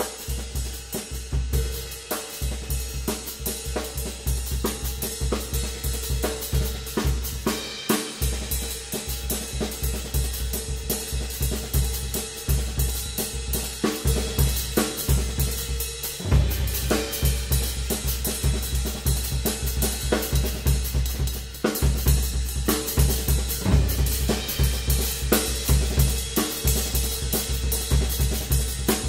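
Ludwig drum kit played solo in a fast, busy pattern across snare, toms and cymbals, over a steady, driving bass drum pulse. Cymbals wash throughout, and the bass drum drops out briefly a few times.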